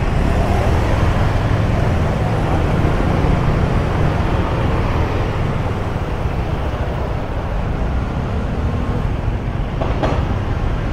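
Steady city traffic noise heard while travelling along a street: a constant rumble of vehicle engines and road noise, with a short click about ten seconds in.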